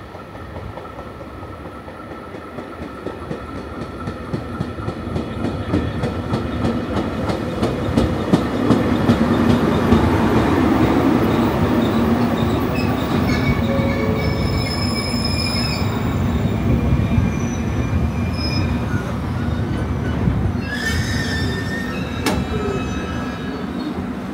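JR Kyushu Series 813 electric multiple-unit train running past, its wheels clattering rhythmically and growing louder over the first ten seconds. In the second half, thin high-pitched wheel squeals come and go.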